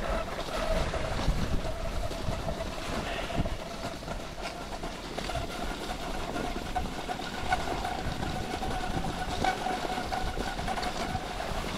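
Cross-country skis gliding along groomed tracks, a steady rumbling swish with wind buffeting the microphone and a faint steady whistle-like tone, broken by a few light clicks.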